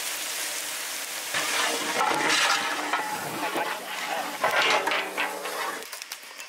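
Food sizzling and being stirred in a large metal cooking pot over a wood fire: a steady hiss, then from about a second in a busier stretch with scraping and clinks, plus some pitched sounds, before it dies down near the end.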